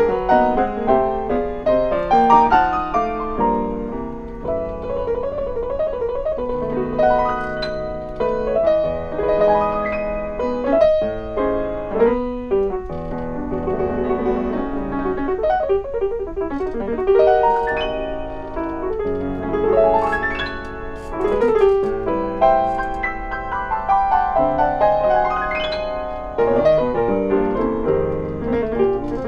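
Solo grand piano playing continuously, with quick rising runs up the keyboard about two-thirds of the way through and again near the end.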